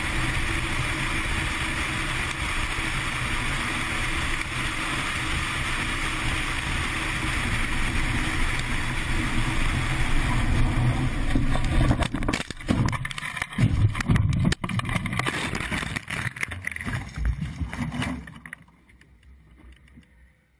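Steady road and wind noise of a moving vehicle, then a little past halfway a run of irregular heavy knocks and jolts as the vehicle runs off the road and crashes. The knocks stop and the sound drops away to near quiet close to the end.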